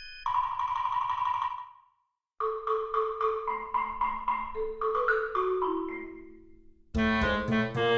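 Background music: a light melody of struck mallet-percussion notes like a marimba, broken by a short silence about two seconds in, then a fuller, louder passage near the end.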